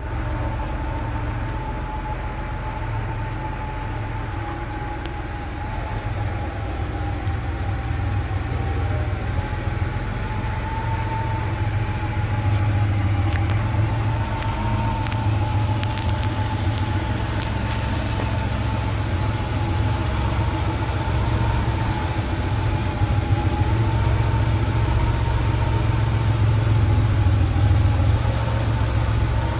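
1988 Porsche 911 Carrera's air-cooled 3.2-litre flat-six idling steadily, with a thin steady whine over the low engine note.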